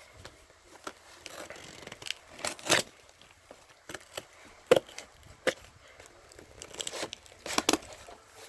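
A shipping package torn open by hand: irregular short rips and crinkling of packaging, with a few sharper snaps.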